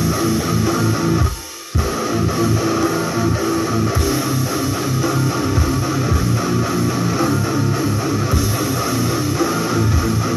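Distorted electric guitar playing chugging metal riffs, muted low-string picking, with a brief stop about a second and a half in.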